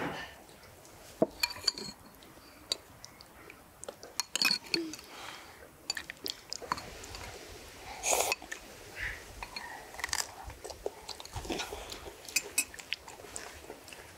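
People eating at a table: spoons clinking and scraping against ceramic bowls and glasses, with chewing and scattered light taps throughout.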